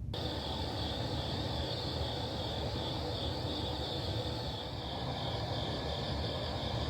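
Crickets chirring in a steady, slightly pulsing high chorus, over a low rumble.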